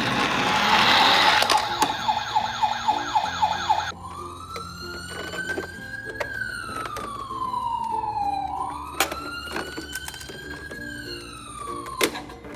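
Emergency vehicle siren: a rushing noise with a fast yelping sweep for the first few seconds, then a slow wail that rises and falls twice.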